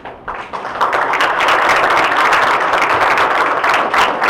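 Audience applauding: many hands clapping, starting just after the sound begins and building within about a second to a steady, full round of applause.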